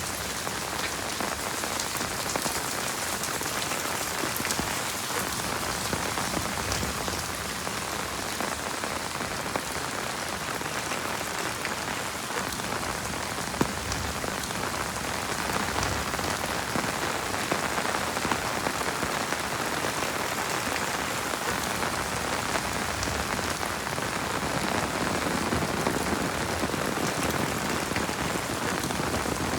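Heavy rain falling steadily: a dense, even hiss of countless drops with fine individual drop ticks throughout, and one sharper tap near the middle.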